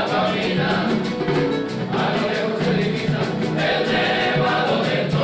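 Several voices singing together in harmony, with long held notes.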